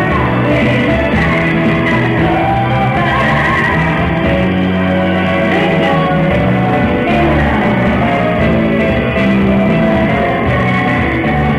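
Loud music with singing over a strong, steady bass line.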